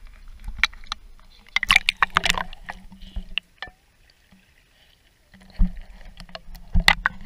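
Water splashing and sloshing against an action camera's waterproof case held at the surface, with irregular knocks and clicks on the housing. About three and a half seconds in the sound drops to a muffled hush for roughly two seconds as the camera goes under, then the splashing comes back.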